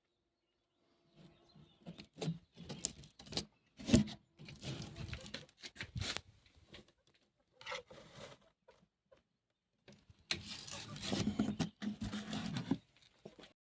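Irregular rustling and tapping in short bursts, separated by silent gaps, with one sharp knock about four seconds in.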